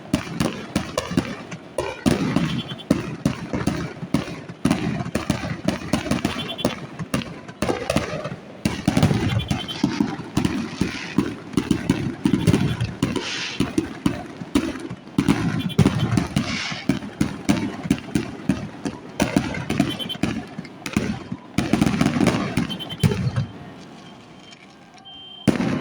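A dense barrage of fireworks going off, with rapid overlapping cracks and low booms that thin out shortly before the end, followed by one last burst. Car alarms set off by the blasts beep in the background.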